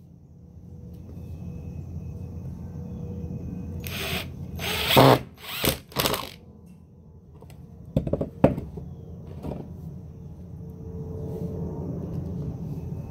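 Ryobi cordless drill running steadily as it drills into the wooden box, twice. Between the two runs come a few loud knocks and clatters, several about four to six seconds in and two more about eight seconds in.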